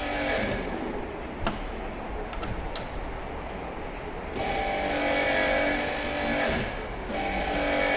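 MAHO MH300 universal milling machine running with a steady whine, stopping about half a second in, with a few sharp clicks while it is off. It starts up again about four seconds in, with a short break near the end.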